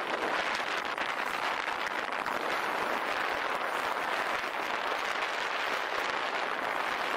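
Steady rushing noise of riding a Begode RSHS electric unicycle along a trail: tyre and wind noise, with no motor whine standing out.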